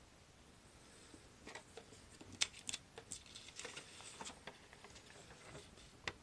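Paper instruction sheet rustling and crackling as it is lifted out of a cardboard kit box and opened, with a run of sharp clicks and taps starting about a second and a half in, the loudest near the middle, and one more sharp tap near the end.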